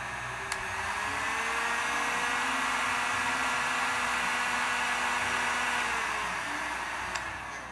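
HOYOMA HTHG-2000C 2000 W heat gun running, its fan blowing steadily. About half a second in there is a click and the fan's pitch rises as it speeds up; near the end the pitch falls as it slows, with another click.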